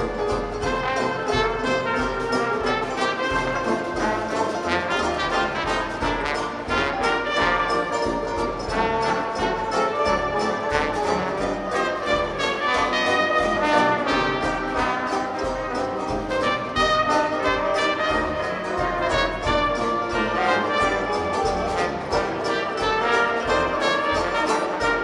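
Live traditional Dixieland jazz band playing, trumpet and trombone leading over a steady rhythm section beat.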